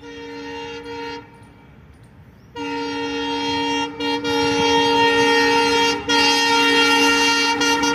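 Multi-tone air horn of an approaching WDM-3A diesel locomotive: a blast that ends about a second in, then after a pause a long blast that grows louder, broken twice briefly.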